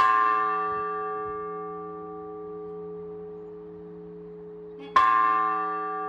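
Russian Orthodox church bell rung in the slow, measured strokes of the blagovest: its clapper strikes twice, about five seconds apart. Each stroke is a bright clang that rings on and slowly fades, over a low hum that sounds throughout.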